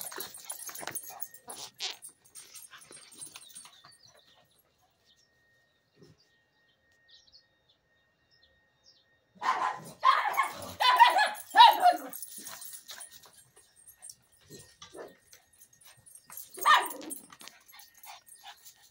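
Dog barking: a quick run of barks about ten seconds in, then a single bark near the end.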